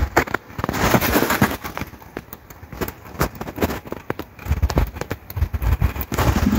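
Wind buffeting the microphone in irregular low gusts, with crackling and clicking handling noise.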